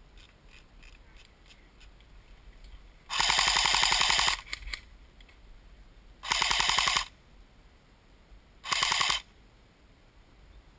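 Airsoft gun firing on full auto in three bursts: a rapid rattle of shots, the first burst about a second long about three seconds in, then two shorter bursts about three and six seconds later. This is suppressing fire toward the opposing team.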